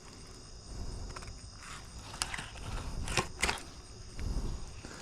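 Serrated fillet knife cutting through a sheepshead along the backbone, scraping against scales and bone, with a few sharp clicks about two and three seconds in.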